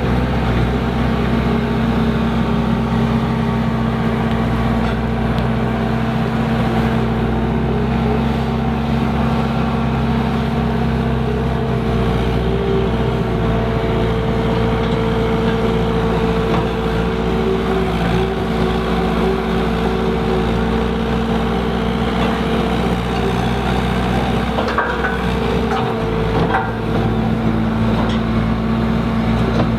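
Skid steer loader engine running steadily at working speed while a rock bucket is worked through the ground. Near the end there are a couple of short knocks.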